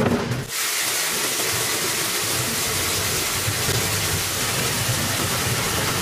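Brief clatter of roots being tipped into a brush washing machine, then from about half a second in a steady hiss of water spraying from a row of nozzles onto vegetables tumbling on the machine's nylon brush rollers, with a low churning underneath.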